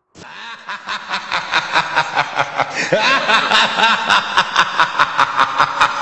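Cackling laughter sound effect, a fast run of 'ha-ha' pulses about five a second that cuts in suddenly and grows louder over the first three seconds.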